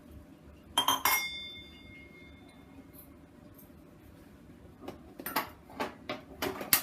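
Kitchen utensils clinking: two sharp clinks about a second in, with a ringing note that fades over about two seconds, then a few lighter knocks and clinks near the end.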